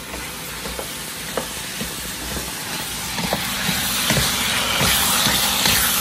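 Chicken sizzling in a pan for pancit, the hiss growing steadily louder over the seconds, with scattered light clicks of a utensil stirring.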